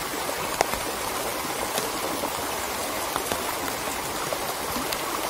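Small muddy stream running steadily over shallows, a continuous even rush of water. A few faint clicks stand out now and then.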